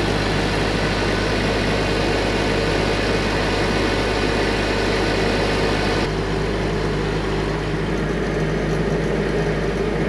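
Engine of a Nettuno DUPLEX motor pump set running at a steady speed with a constant low hum, driving its submersible and surface pumps. It turns slightly duller about six seconds in.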